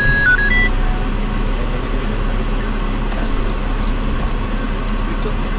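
Car engine and road noise at low speed, heard from inside the cabin: a steady low rumble and hum. A short run of electronic beeps, stepping down and back up in pitch, sounds right at the start.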